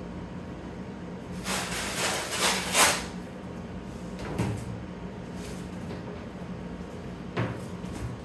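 Slot car track sections being handled and slid across a tabletop: a scraping rustle lasting about two seconds, then a knock a few seconds in and another near the end as pieces are set down.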